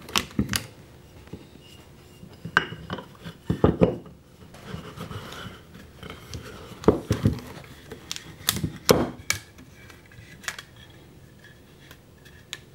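Plaster mold blocks knocking and scraping on a wooden tabletop while rubber bands are stretched and snapped around them: a handful of separate clacks and taps with quiet between them.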